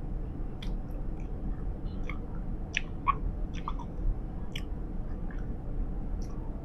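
Close-miked gum chewing: Big League Chew bubblegum giving short, irregular mouth clicks and smacks, one or two a second, over a steady low rumble of a city bus.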